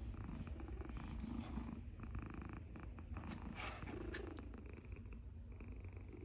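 A cat's continuous low, finely pulsed rumble as it breathes, a purr-like sound that the owner takes for snoring.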